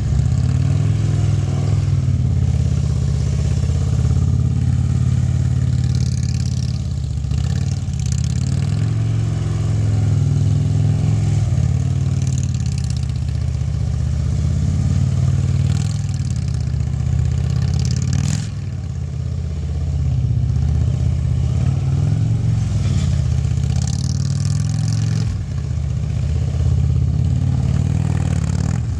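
Harley-Davidson touring motorcycle's V-twin engine running at low speed through tight cone turns. The engine note holds steady and dips briefly a few times as the throttle eases off.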